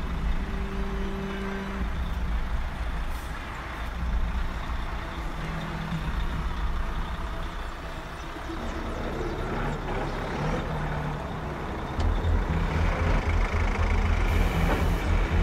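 Radio-controlled Liebherr model wheel loader working, its sound module playing a diesel-engine rumble. About twelve seconds in the engine note steps up to a heavier, pulsing rumble.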